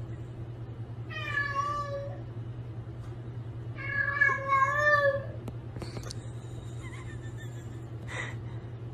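Domestic cat meowing twice, about a second in and again near the middle; the second call is longer and wavers in pitch. A steady low hum runs underneath.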